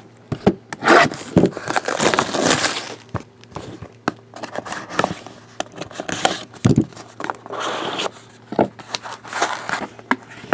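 Packaging crinkling and tearing as a trading-card box is opened, with clicks and scrapes of cards and cardboard being handled. The rustling comes in bursts and is loudest in the first few seconds.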